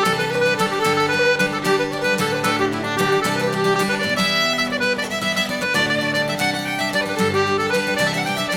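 Background music: a traditional folk tune led by fiddle and accordion.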